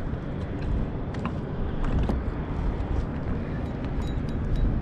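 Wind rumbling on the microphone over open water, a steady low rush, with a few faint ticks.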